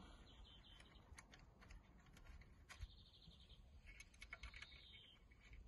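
Near silence: faint small clicks and taps of a plastic car touchpad unit being handled, with faint bird chirps behind.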